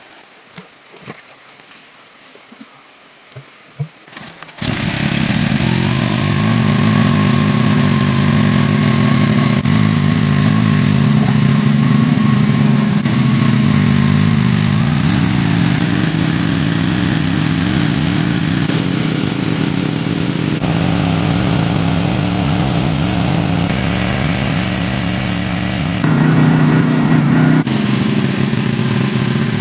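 An engine running steadily at a constant pace. It starts abruptly about four and a half seconds in, after a few faint clicks.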